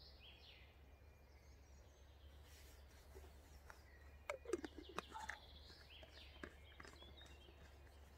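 Near silence: faint woodland ambience with a few bird chirps over a steady low hum, and a cluster of small clicks about four to five seconds in.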